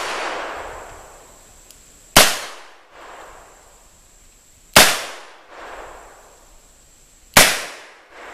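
.357 revolver firing three light handloaded rounds, about two and a half seconds apart, each shot followed by a short echo.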